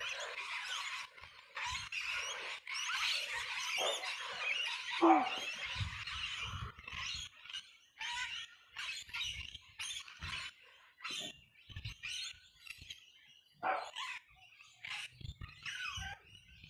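A flock of birds chirping and calling: a dense, busy chorus of many birds for the first several seconds, thinning to scattered single calls after that.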